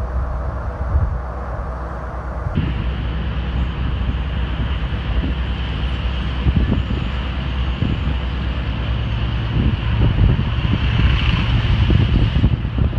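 Early-1950s Chevrolet convertible driving, its engine running steadily under road and wind noise through the open top, growing a little louder near the end.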